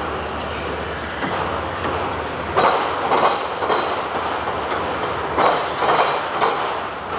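Freight train of autorack cars rolling past close by: a steady rumble of steel wheels on rail, with two loud bursts of wheel clacking, one about two and a half seconds in and another about five and a half seconds in.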